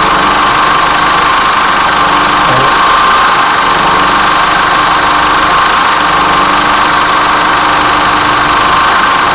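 Chevrolet S10's 2.8-litre four-cylinder turbodiesel engine, running warm and recorded close up under the open hood, with a brief change in the sound about two and a half seconds in. It is the strange noise that the owner hears on light throttle taps and sometimes at idle when the engine is hot, which a GM mechanic put down to a valve that opens on acceleration.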